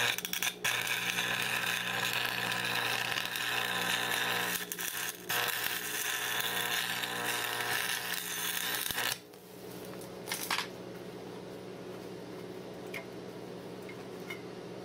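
Stick (arc) welding at about 100 amps: the arc crackles steadily, breaks off briefly about five seconds in, and stops about nine seconds in. After that a steady hum carries on, with a single click a little later.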